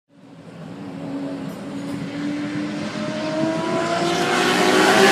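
Race car engine coming closer, growing steadily louder, its note climbing in pitch over the last couple of seconds as it accelerates.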